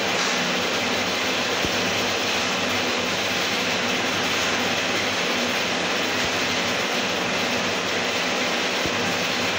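Steady, unchanging rushing noise with a faint low hum underneath.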